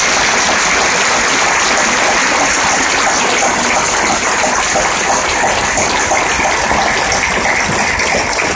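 Large crowd applauding steadily, a dense wash of many hands clapping.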